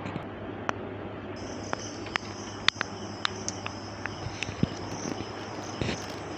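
Short, sharp clicks and taps of a small tool working on a swollen lithium-polymer laptop battery pack, as a small hole is made in it to let the built-up gas out. A steady high trill sets in about a second in.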